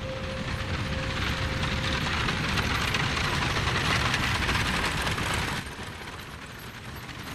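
Horse-drawn open carriage on the move: the wheels and body rattling and clattering on a dirt road along with the horses' hooves. The sound is loud at first and drops to a fainter rattle a little past halfway.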